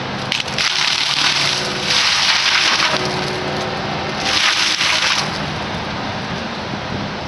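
Excavator-mounted mower head grinding through brush and small trees in three loud bursts over the steady running of the excavator's engine.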